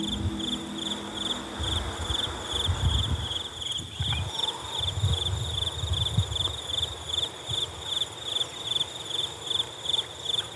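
Crickets chirping steadily at night, a high-pitched run of evenly spaced chirps, over a low rumble that swells and fades.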